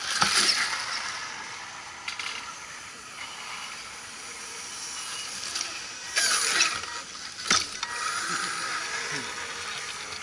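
Scale RC crawler trucks' small electric motors and geared drivetrains whirring as they crawl over a root and log, with several sharp knocks and clatters as the trucks bump over, the loudest at the start and around six and seven and a half seconds in.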